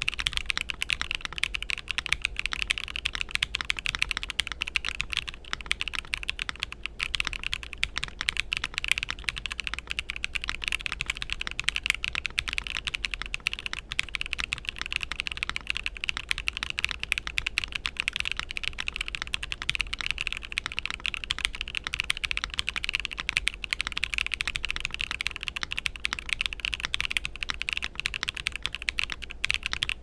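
Rapid, steady typing on a MonsGeek M3 TKL mechanical keyboard with Akko V3 Cream Yellow Pro linear switches, a polycarbonate plate and case foams: a dense, even stream of keystrokes on the clackier side.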